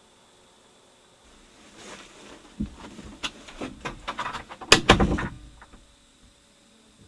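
Rustling that builds into a quick run of clattering knocks and clicks, loudest about two-thirds of the way through, then stops.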